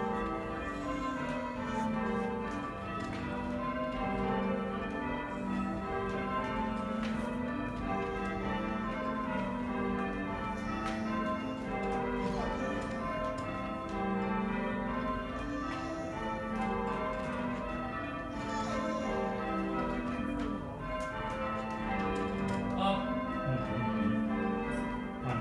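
Church tower bells rung full circle by a band of ringers, heard from the ringing chamber below. The bells strike one after another in a steady, repeating descending sequence, round after round.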